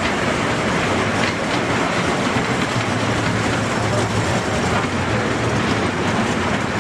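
Children's mini train ride with Mickey Mouse cars running along its circular steel track: a steady running noise of small wheels on the rails.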